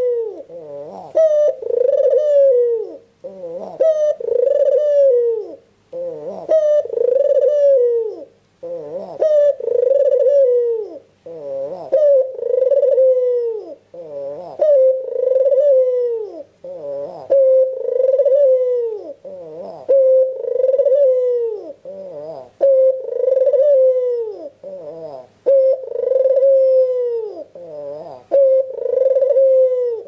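White, red-eyed (albino) puter, a domestic Barbary dove, cooing nonstop: one coo about every two seconds, each ending in a downward slur.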